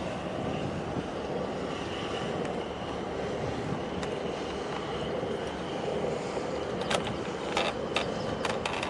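Steady mechanical drone of engines across the water, with several sharp clicks near the end.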